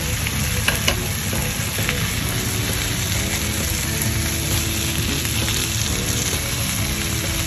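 Chili pepper leaves and green chilies sizzling as they are stir-fried in oil in a frying pan, turned with chopsticks; a steady frying hiss with a few light clicks about a second in.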